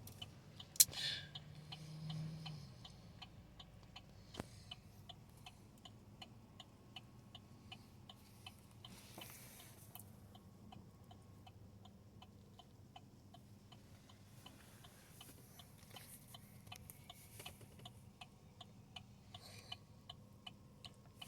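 Turn-signal indicator of a 2019 Chevy Tahoe ticking faintly and steadily inside the cab, a few evenly spaced clicks a second.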